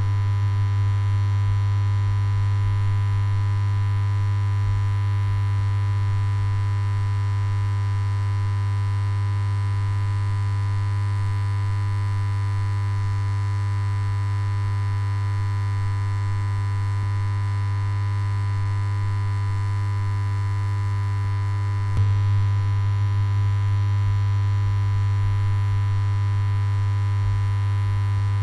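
A steady low hum with several fainter steady tones above it and a light hiss, unchanging throughout, broken once by a short click about three-quarters of the way through.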